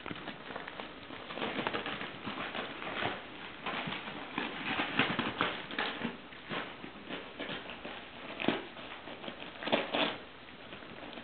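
Gold wrapping paper crinkling and tearing as an Italian Greyhound bites and paws at a present, in irregular bursts of rustling with sharper crackles.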